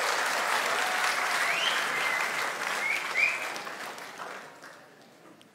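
Auditorium audience applauding, the clapping fading away about four to five seconds in.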